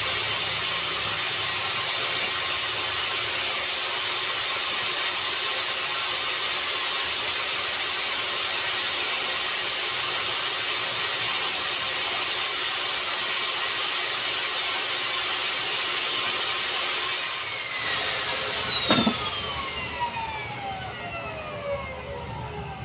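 An electric power tool running steadily at full speed with a high whine and a loud hiss. About 17 seconds in it is switched off and winds down, its whine falling in pitch over several seconds, with a single knock partway through.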